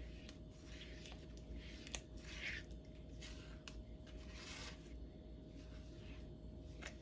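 Spatula stirring and scraping thick, reducing milk in a nonstick frying pan: faint, irregular swishing strokes with a couple of light clicks against the pan, over a faint steady hum.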